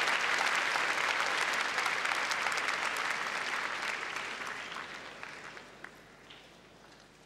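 Audience applauding, a dense clapping that dies away over the last few seconds to a few scattered claps.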